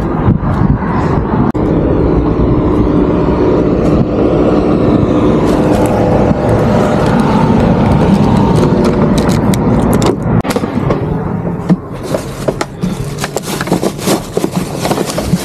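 A truck's engine runs steadily close by for about ten seconds. After that come a run of clicks and knocks: the cab door handle, the door opening and things being moved about inside the cab.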